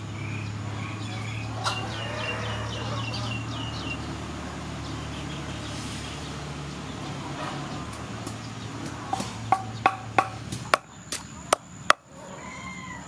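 Wooden pestle pounding lemongrass and salt in a wooden mortar: a quick run of about eight sharp knocks over some three seconds in the second half.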